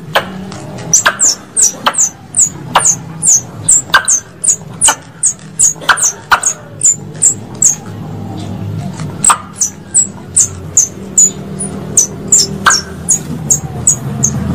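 Plantain squirrel lure call: a long, irregular series of sharp, very high-pitched chips, each dropping slightly in pitch, about two to three a second, under a low rumble.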